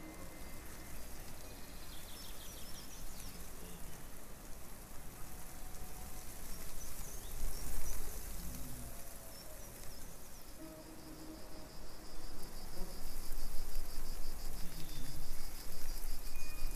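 Hissing ambient soundscape with scattered faint short tones. A fast, high-pitched pulsing joins about two-thirds of the way in, and the sound grows louder.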